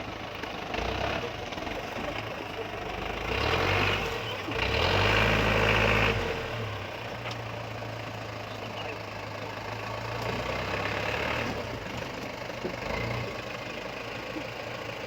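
Daihatsu Taft 4x4's swapped-in truck diesel engine running under load, with a knocking diesel note. It rises twice, about four and five seconds in, then settles back to a steady run.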